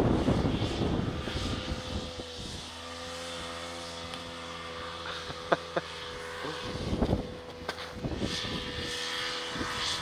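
An engine idling steadily with an even, low hum, two sharp clicks near the middle, then a louder rushing noise over the last few seconds.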